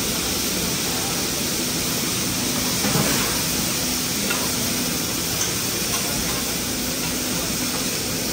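Food sizzling on a hibachi flat-top grill: a steady hiss, with one light knock about three seconds in.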